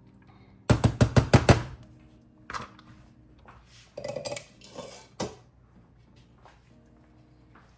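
A metal utensil clinking against a pot in a quick run of about seven sharp taps, then a few scattered lighter knocks of cookware.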